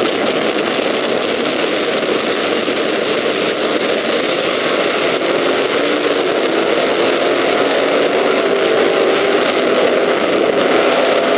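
Drag-racing V8 engines at wide-open throttle as a Chevrolet Camaro SS stock-class car and its opponent launch and run down the strip: a loud, even roar. A few steady engine tones come through in the second half.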